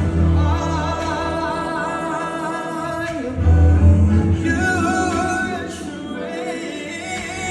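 Live pop music: a singer over a band or keyboard accompaniment with a strong bass.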